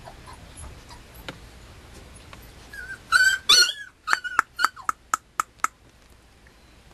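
Mame shiba puppy giving two high, wavering whimpering yelps about three seconds in, followed by a quick string of short, sharp high squeaks.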